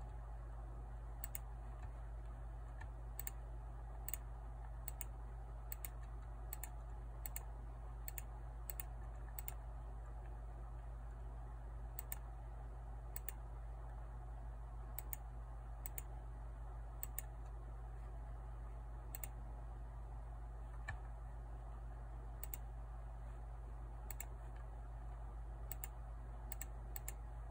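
Scattered, irregular clicks of a computer keyboard being typed on, over a steady low hum.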